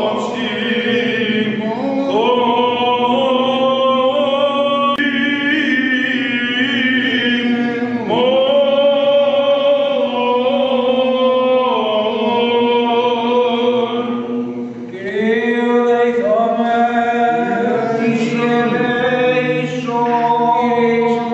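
Male voices singing Byzantine chant, long melismatic phrases over a steady held drone note (the ison), with short breaths between phrases about 2, 8 and 15 seconds in.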